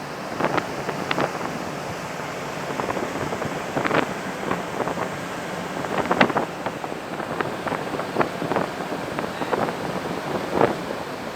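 Sea water splashing and rushing along the hull of a moving cargo ship, in irregular bursts over a steady wash, with wind buffeting the microphone.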